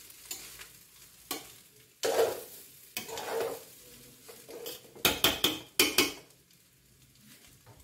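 Spatula stirring and scraping rice as it fries in ghee in a stainless steel pot, with a light sizzle. About five seconds in comes a quick run of sharp metal clanks, the loudest sounds here, as a metal spatula knocks against the steel pot.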